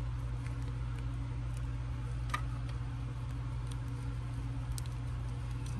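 A few faint clicks of plastic as action-figure arms are pushed into the torso, over a steady low hum.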